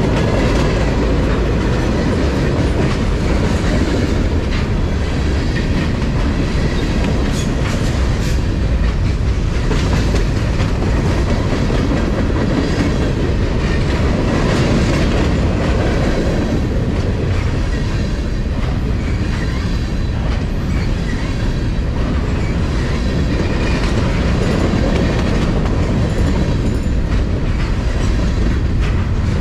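Freight train tank cars and covered hopper cars rolling past close by: a loud, steady rumble of steel wheels on rail, with scattered clicks from the wheels and couplers.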